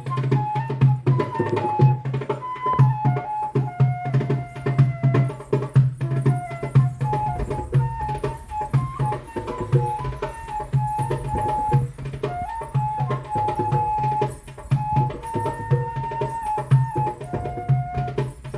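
Music: a single wind-like melody moving in steps over a quick, steady hand-drum rhythm with a pulsing low drone.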